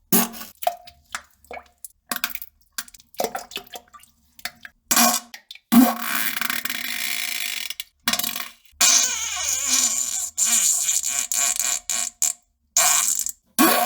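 Farting and pooping sounds: a string of short pitched toots in the first five seconds, then two long, noisy stretches of about two and three and a half seconds, and one more short burst near the end.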